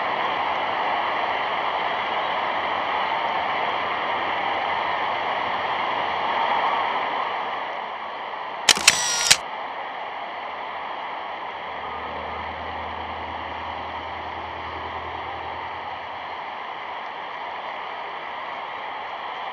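Steady hiss of an old archival soundtrack. About nine seconds in, a sharp camera-shutter click sound effect, two or three quick clicks, after which the hiss carries on quieter.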